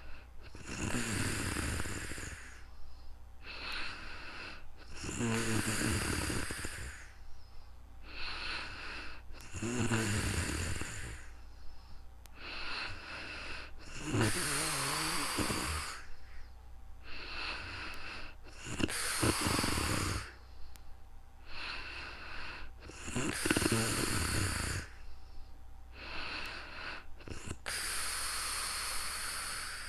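A person snoring in sleep: seven long snores, about one every four to five seconds, each followed by a shorter, softer breath.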